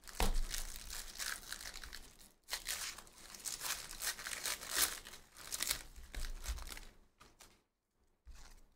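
Foil wrapper of a Panini Donruss basketball hobby pack being torn open and crinkled by hand. The crackling comes in bursts, with a short break about two and a half seconds in, and dies away about a second before the end.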